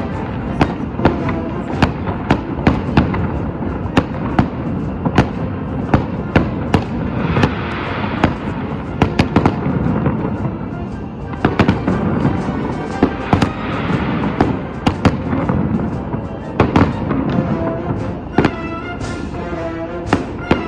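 Fireworks going off in quick succession, many sharp bangs a second with crackling, over music. Near the end the bangs thin out and the music stands out.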